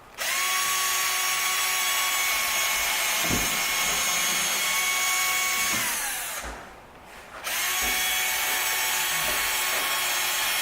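Power drill boring 1/8-inch pilot holes into a split wooden door, running at a steady speed. It winds down about six seconds in, pauses briefly, then starts again for a second hole.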